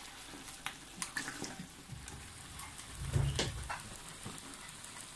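Beef and sliced green chillies sizzling in a wok while being stirred, with the wooden spatula scraping and tapping the pan several times. A brief low thump about three seconds in.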